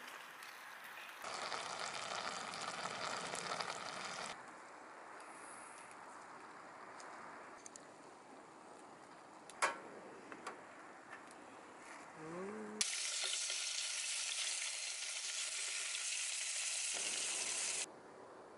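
Food sizzling in a small frying pan on a camp gas stove, heard in cut-together stretches. A sizzle starts about a second in and stops after about three seconds, then comes a quieter stretch with one sharp click near the middle, and a louder steady sizzle near the end that cuts off suddenly.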